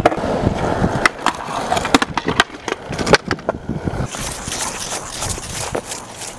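Skateboard wheels rolling on concrete, with many sharp clacks over the first few seconds. From about four seconds in this gives way to a steadier scraping hiss as a block of skate wax is rubbed along a concrete ledge.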